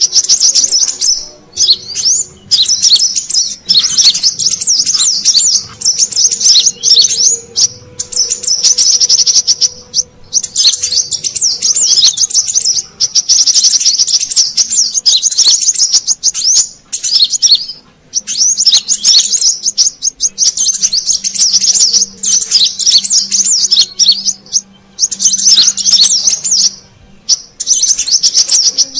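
Brown-throated sunbird (kolibri kelapa) lure recording: rapid, high-pitched twittering chirps in dense bursts with short breaks, an agitated call used to attract wild sunbirds.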